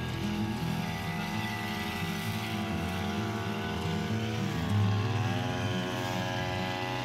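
Backpack brush cutter's small petrol engine running at working speed while cutting grass; its pitch dips briefly about two-thirds of the way through, then climbs back.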